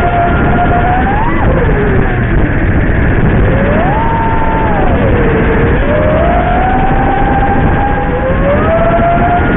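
Five-inch FPV racing quadcopter (ImpulseRC Alien on Lumenier 2350kv motors with Gemfan props) in flight, its motor and propeller whine sweeping up and down in pitch several times as the throttle changes, over a steady rush of wind and prop noise.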